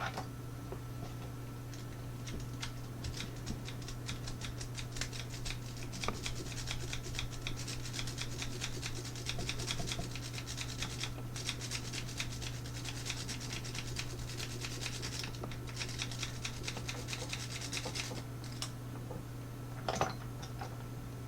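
Metal lock pick and tension wrench scraping and clicking against the sliders inside the keyway of an Almencla 10-slider lockout padlock: a long run of quick, faint scratchy clicks, with a sharper click near the end. A steady low hum sits underneath.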